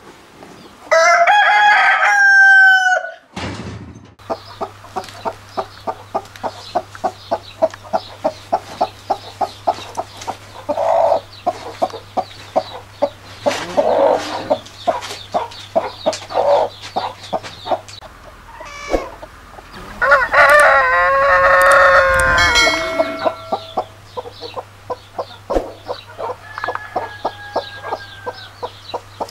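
A rooster crows once about a second in, then a broody hen clucks in a steady run of short clucks, about three a second, with a few louder calls mixed in. A second long crow comes about twenty seconds in.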